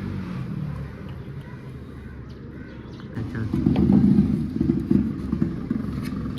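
A small engine running, swelling louder for about two seconds midway through.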